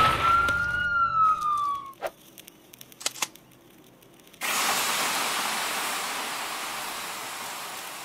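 A siren winding down, its pitch falling away over the first two seconds. Then a couple of sharp clicks, and about halfway through a fire hose spraying: a hiss that starts suddenly and slowly fades.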